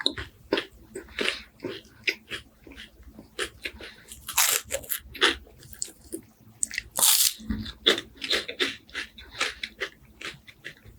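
Close-up eating of crispy wafers: a run of crunching bites and chewing. The two loudest crunches come about four and a half and seven seconds in.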